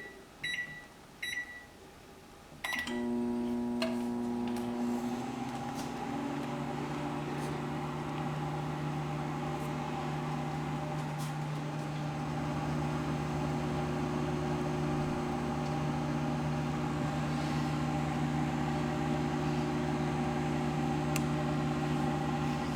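Microwave oven keypad beeping a few short times, then about three seconds in the oven starts and runs with a steady hum, cooking papadums at full power.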